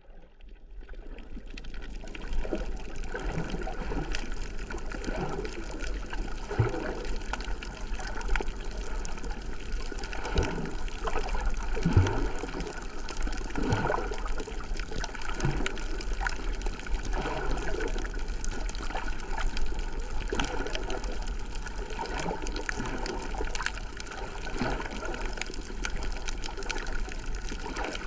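Seawater sloshing and gurgling, with irregular short bubbly pops and swells over a steady low hum.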